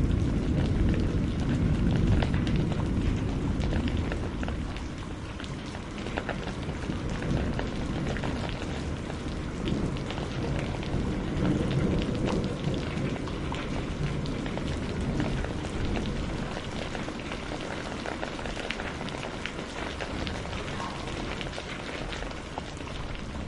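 Steady rain falling, with fine drop patter throughout. A low rumble of thunder fills the first few seconds and dies away.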